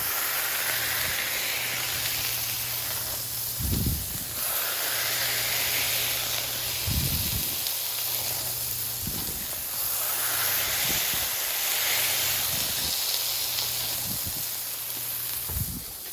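Ground-beef patties sizzling hard on a hot Blackstone flat-top griddle as they are smashed down with a burger press. The hiss swells with each fresh smash, and a few low thuds come from the press.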